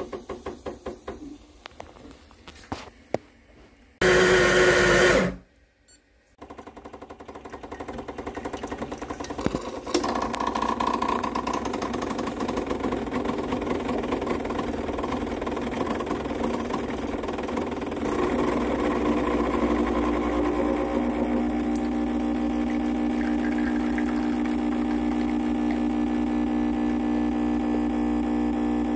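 Espresso machine pump running through a shot: rapid pulsing from about six seconds in that settles into a steady hum about ten seconds in and grows a little louder later on. Just after four seconds in there is a loud hiss lasting about a second, followed by a brief silence.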